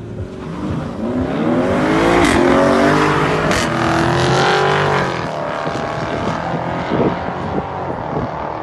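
Tuned Audi RS6 Performance's twin-turbo V8, fitted with an aftermarket exhaust, accelerating hard: the engine note climbs, breaks with gear changes about two and three and a half seconds in, and eases off after about five seconds.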